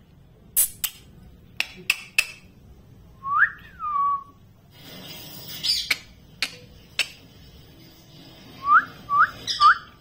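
Short whistles: one whistle that rises and then falls, a few seconds in, and a run of four quick rising whistles near the end. Sharp clicks come singly in between.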